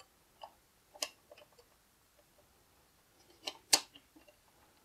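Small hard-plastic clicks and taps as a plastic toy wheel is pushed onto the motorcycle's axle, with a sharp click about a second in and two louder clicks in quick succession near the end.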